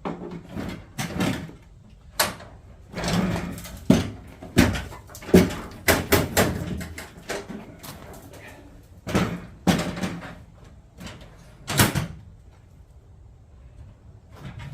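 Irregular knocks, clunks and short scrapes, about a dozen in all, of parts and tools being handled, with quieter gaps between them.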